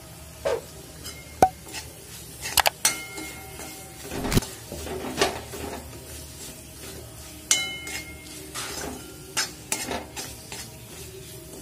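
Metal spoon stirring thick onion-tomato masala in a metal kadai, scraping and clinking irregularly against the pan, some clinks ringing briefly, over a faint sizzle of the masala frying.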